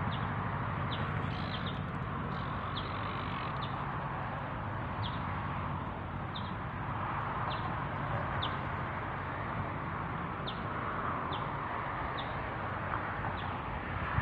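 Birds giving short, high chirps every second or so, irregularly, over a steady background rush.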